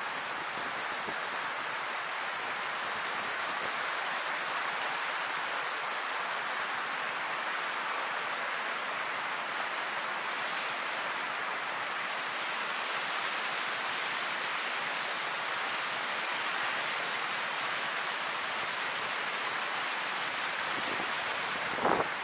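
Steady rush of river water pouring over the edge of a submerged concrete low-water causeway, with a couple of brief knocks near the end.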